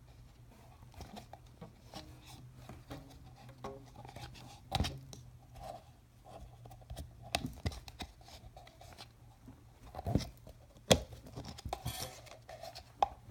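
Handling sounds of hands tightening a rubber-band tie around a plastic hook against a cork board: soft rubbing and scattered clicks, with a few sharper knocks, the loudest about eleven seconds in.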